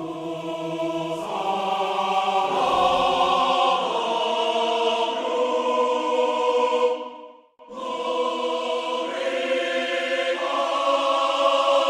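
Choral soundtrack music: a choir holding long chords that shift a few times, cutting out briefly about seven and a half seconds in before resuming.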